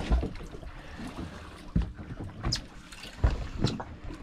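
Wind buffeting the microphone and water slapping against the side of a boat, with several sharp knocks through it.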